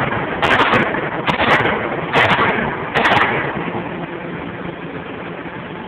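Hydraulic forging hammer striking a red-hot ring blank about four times, less than a second apart, each blow ringing briefly. Then only the steady running noise of the machine for the last few seconds.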